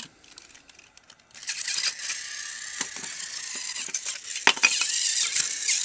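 A few small plastic clicks, then about a second and a half in a battery-powered Thomas toy engine's motor and gears start running with a steady high whirring rattle, with occasional sharper clicks.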